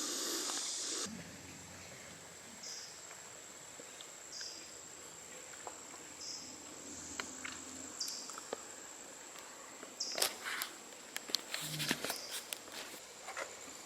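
Quiet woodland ambience: a steady high insect buzz with a short high chirp repeating about every two seconds. A brief hiss fills the first second, and footsteps and rustling on the trail come in near the end.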